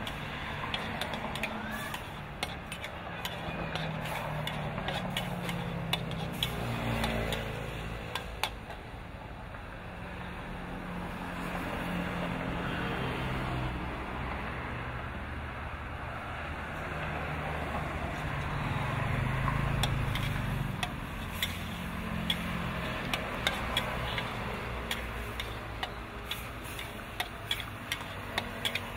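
Stir-frying in a wok: a metal spatula scrapes and clinks against the wok as shrimp and squid sizzle over a gas burner. The clinks come in quick runs, with a quieter spell in the middle. Under them a low rumble swells and fades a few times.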